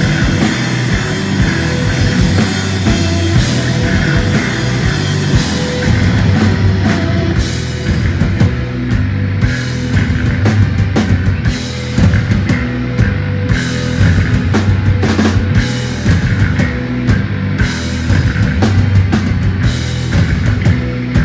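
Instrumental post-rock band playing loud, heard live: electric guitars, bass guitar and drum kit. A thick wash of guitar and cymbals fills the first six seconds or so, then separate heavy drum hits come through over the sustained bass and guitar.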